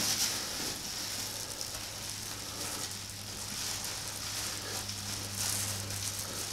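Black plastic garbage bag full of moist wheat bran rustling and crinkling as it is handled, pressed to push the air out and tied off. A low steady hum runs underneath.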